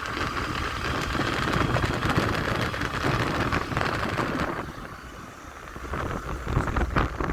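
Honda Activa 3G scooter running on a test ride after a gearbox repair, engine and rushing wind noise, easing off about five seconds in and picking up again near the end.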